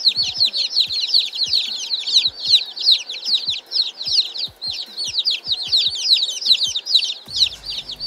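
A brood of baby chicks peeping nonstop, a dense overlapping chorus of short, high cheeps that each fall in pitch.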